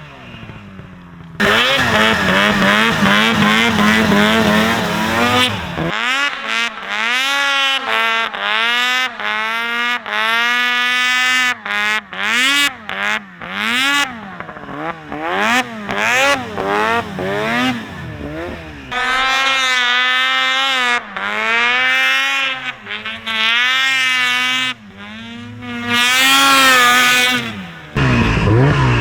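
Snowmobile engine running steadily at first, then revved up and down over and over as the sled is ridden through terrain.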